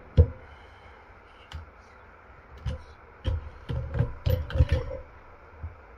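Metal distributor parts and hand tools knocking and clicking as they are handled on a workbench: one sharp knock just after the start, then a quick run of clicks and knocks through the second half and a last light one near the end.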